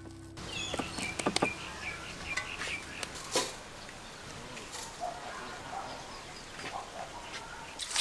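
Hands kneading and slapping fish-ball paste in an aluminium bowl: a few soft, irregular squelches and taps in the first seconds. Birds chirp faintly in the background.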